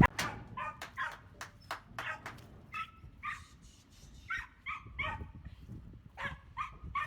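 A dog barking repeatedly in short barks, about two a second with a brief lull partway through. A few sharp knocks sound in the first couple of seconds.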